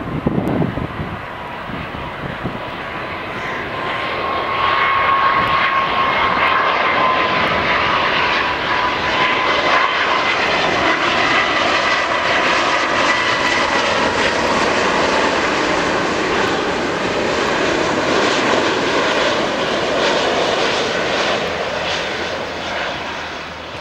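Jet airliner's engines passing close, a loud steady rush with a high fan whine whose pitch sinks slightly as it goes by; it swells about four seconds in and starts to fade near the end.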